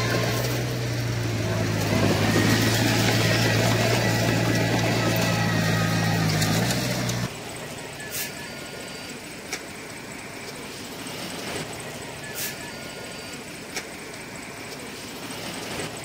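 Heavy diesel engine of a bulldozer running steadily with a deep even hum, which cuts off abruptly about seven seconds in. A quieter noisy background follows, with a few short sharp clicks.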